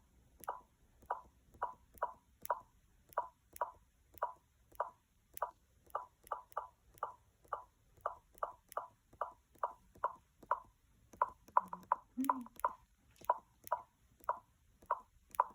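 15-inch 2019 MacBook Pro speakers popping repeatedly, about two pops a second at a slightly uneven pace and briefly faster a little past the middle: an annoying fault in a two-month-old machine.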